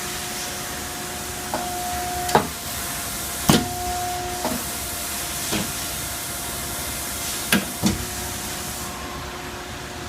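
Automated pick-and-place and welding cell running: a steady hiss and hum broken by sharp mechanical clanks and clicks every second or so, the loudest about two and a half and three and a half seconds in. The high hiss thins near the end.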